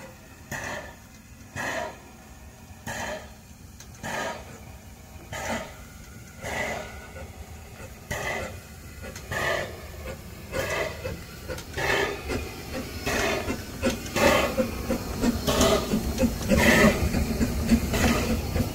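Narrow-gauge steam locomotive drawing slowly into a station, its exhaust giving slow, regular chuffs a little over a second apart. The chuffs grow louder as it draws near, and the low rumble of the engine and carriages on the rails swells toward the end as the train passes close by.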